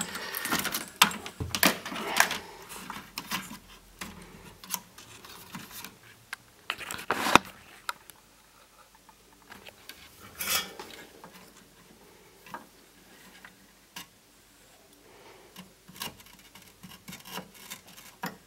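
Handling noises at an electronics workbench: scattered clicks, taps and rubbing as tools, a multimeter and wire are picked up and moved. The busiest stretch comes in the first few seconds, with sharp clatters about seven and ten seconds in.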